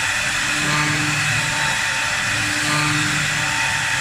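A 4-axis CNC wood lathe running and cutting a spinning wooden workpiece: a loud, steady hiss of cutting with a low hum that rises and fades about every two seconds.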